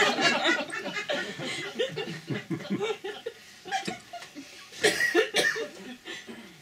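Live audience laughing, loudest at the start, with another loud burst of laughter about five seconds in.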